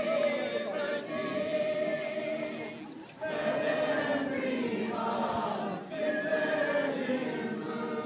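A crowd of voices singing together in long held notes, with short breaks for breath about three and six seconds in.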